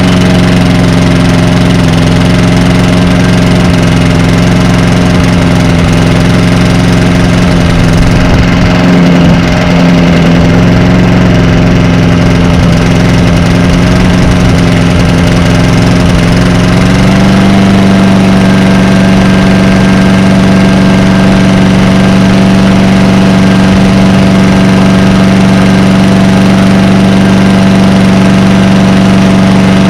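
Honda GCV160 single-cylinder engine on a Lawn-Boy walk-behind mower running steadily just after a cold start on choke. About two-thirds of the way through, its speed steps up slightly and then holds.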